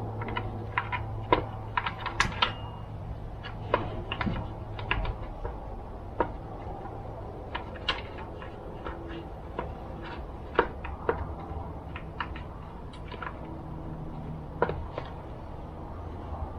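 Irregular light clicks and taps of small plastic and metal chainsaw parts and screws being handled and fitted by hand, with a few sharper knocks among them.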